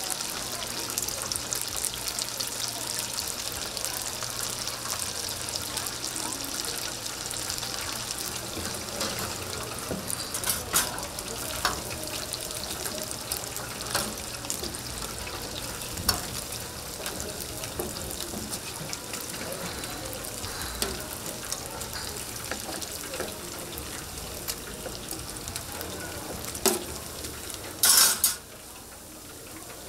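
Chicken pieces deep-frying in hot oil: a steady crackling sizzle, with a few sharp metal clinks from the wire strainer. Near the end there is a loud clatter, after which the sizzle drops away.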